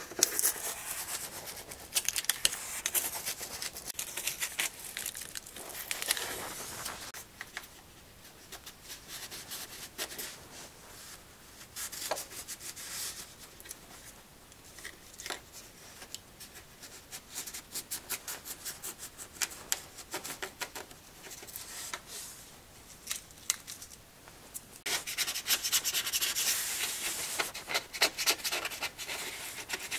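Single-edge razor blade scraping and shaving cured low-expansion spray foam flush with a wooden hollow core door surface, in irregular strokes. Near the end it becomes a louder, denser run of rubbing strokes.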